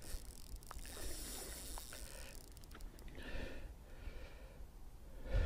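A man breathing and sniffing hard through the nose while playing a hooked pike on a spinning rod. A faint hiss runs for the first couple of seconds, over a low wind rumble on the microphone.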